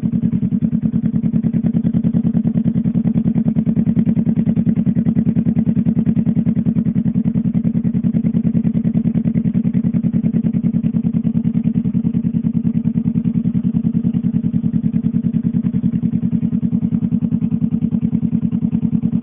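Honda CBR motorcycle engine idling steadily through a custom chrome exhaust muffler, an even pulsing exhaust note that holds without revving.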